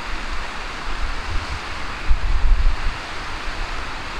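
A river in spate, brown with overnight rain and running fast, giving a steady rushing hiss of water. Gusts of wind buffet the microphone with a low rumble, most strongly a little past halfway.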